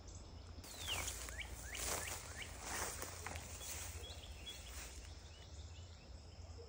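Rustling through long grass, with a few soft swishes about a second apart. Birds call in short falling whistled notes over it.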